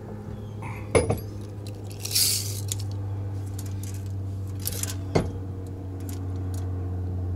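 Sharp metallic clicks and a short rasp from a steel tape measure being pulled out and held against a hitch ball mount to measure ball height, over a steady low hum. The loudest click comes about a second in, the rasp about two seconds in, and a few more clicks about five seconds in.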